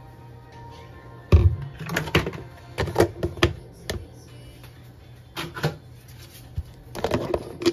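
Plastic food-storage container and lid knocking and clicking as they are handled and the lid is fitted. A run of sharp, irregular knocks starts about a second in. Quiet background music plays underneath.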